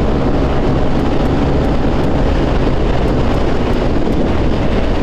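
Wind rushing over the microphone of a motor scooter riding at about 90 km/h, loud and steady, with a low engine note running underneath.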